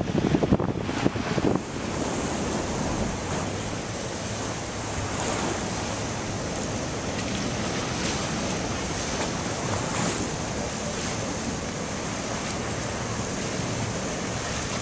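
Wind buffeting the microphone in heavy gusts for about the first two seconds, then a steady rush of storm surf breaking along a seawall, with wind beneath it.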